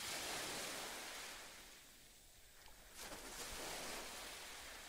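Sea waves washing on a shore: a surge of surf hiss that draws back, then builds again about three seconds in.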